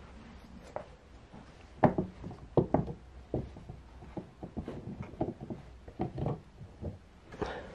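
Plastic cat flap set in a cardboard box knocking and tapping irregularly against its frame as a cat pushes through it, loudest about two to three seconds in.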